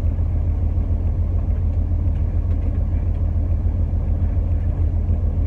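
Semi-truck's diesel engine idling, a steady low rumble heard from inside the sleeper cab.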